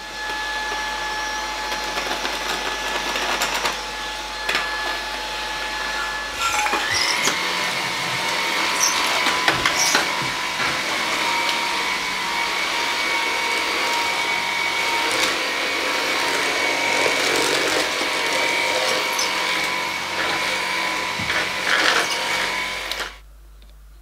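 Dreame T20 cordless stick vacuum running: a steady motor whine over the rush of air, stepping up in pitch about seven seconds in, with scattered short clicks. It shuts off about a second before the end.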